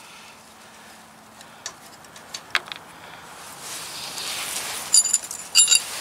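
A few faint handling clicks and a rustle, then two bright, ringing metallic clinks about half a second apart near the end: a steel combination wrench being handled.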